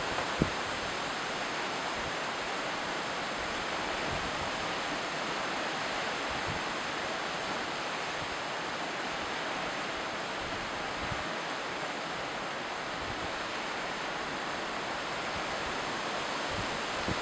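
Strong wind rushing through tree foliage, a steady even hiss of leaves and branches, with a couple of brief bumps in the first second.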